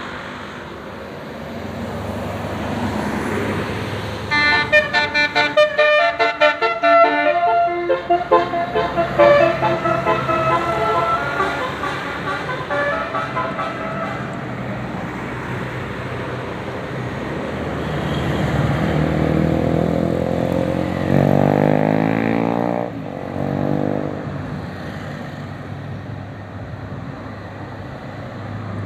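Tour bus's 'telolet basuri' musical horn playing a quick run of short, pulsing notes for about five seconds, starting a few seconds in, then softer notes, over steady engine and traffic noise. A rising whine follows near the end.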